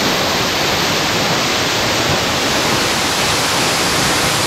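Large mountain waterfall in heavy flow: a loud, steady rush of falling water, heard from close enough to be in its spray.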